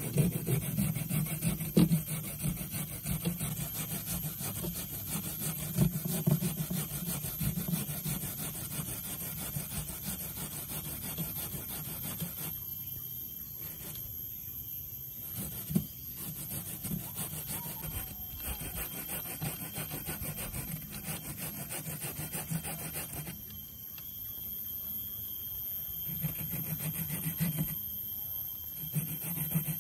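Fresh coconut flesh grated by hand on a wooden grater board studded with small pins: fast, rhythmic rasping strokes, which break off briefly a few times.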